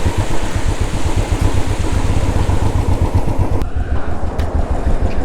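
Royal Enfield Classic 350 single-cylinder engine running with the bike under way, a low pulsing thump under rushing wind noise on the microphone. The wind noise drops away about three and a half seconds in, leaving the engine with a couple of short clicks.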